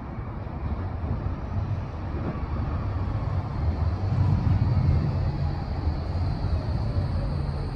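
Cobra low-floor tram approaching and slowing into the stop. A low rumble of its wheels on the rails grows louder about halfway through. A faint electric drive whine falls in pitch as it brakes.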